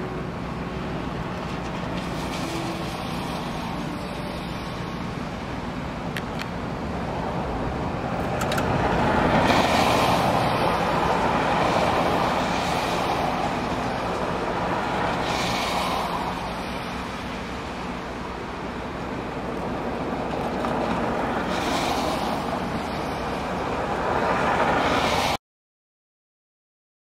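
Street traffic on a wet, slushy road: cars passing with tyre hiss over a steady traffic hum, rising and falling in several swells. The sound cuts out suddenly near the end.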